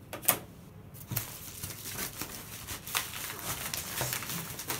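Crinkling and rustling of packaging being handled: a yellow mailing envelope opened and items drawn out of it. There is one sharp click just after the start, and the crinkling then runs on steadily.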